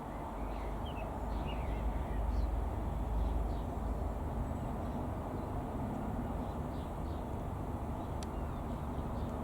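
Distant, steady drone of a Beagle B121 Pup's single four-cylinder piston engine and propeller passing overhead, with small birds chirping in the first few seconds.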